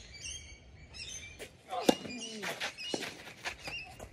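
A tennis ball struck hard by a racket about two seconds in, followed at once by a short falling grunt and, about a second later, a softer knock like the ball bouncing on the clay court. Birds chirp briefly at the start, and shoes scuff on the clay.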